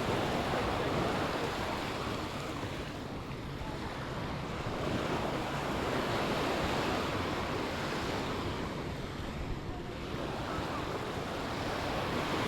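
Small Mediterranean waves breaking and washing up the beach, the surf swelling and fading in slow surges about every five or six seconds. Wind buffets the microphone.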